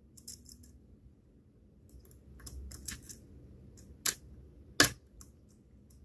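Faint metallic clicks and scrapes of a lock pick working the pins of a pin-tumbler lock with spool and serrated security pins, with two sharper clicks about four and five seconds in.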